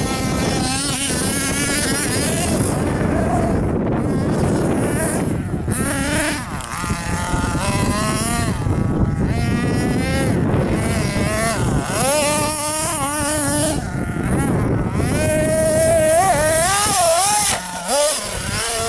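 Hobao Hyper ST radio-controlled truck's engine revving as it is driven, its pitch rising and falling again and again.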